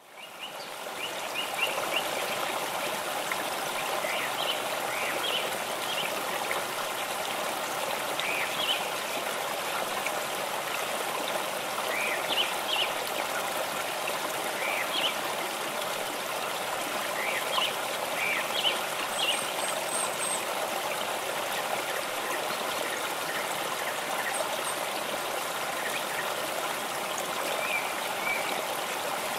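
Steady rush of running water, fading in over the first second or so, with brief higher trickling sounds scattered through it.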